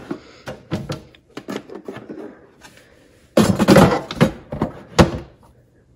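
Toy pots and pans clattering in a clear plastic storage bin as it is handled and pushed into a toy kitchen's fridge compartment: a run of small knocks, a scraping rustle lasting about a second from about three and a half seconds in, and a sharp knock near five seconds.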